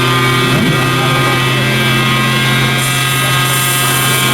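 Steady mechanical drone holding one pitch, with a short pitch sweep about half a second in and more hiss near the end.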